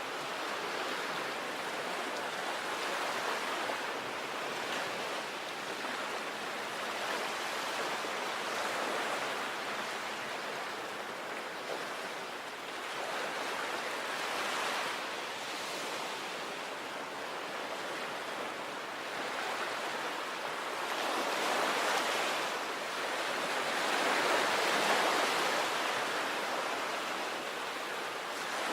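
Sea waves breaking and washing on the shore: a continuous rush of surf that swells and eases every few seconds, loudest in the last third.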